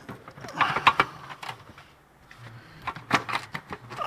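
Hard plastic knocking, clicking and scraping as a new washer fluid reservoir is pushed and worked into place inside a car's wheel well. The sounds come in two bunches, about a second in and again around three seconds, over a low steady hum.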